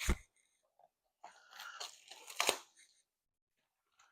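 Trading-card packaging being handled and torn open: a brief crackle at the start, then about a second and a half of crinkling and tearing that ends in a sharp crackle about two and a half seconds in.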